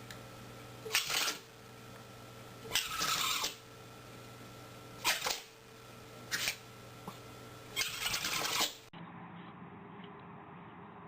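An animal sneezing five times in a row, roughly one to two seconds apart: some sneezes short and sharp, two longer and drawn out.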